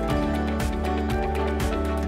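Background music with a steady beat, about two beats a second, under held notes.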